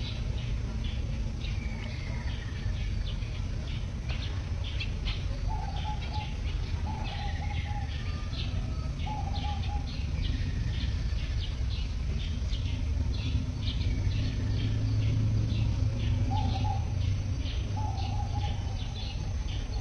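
Birds chirping: many short, high chirps throughout, with a few brief, steady mid-pitched call notes at intervals, over a low background rumble.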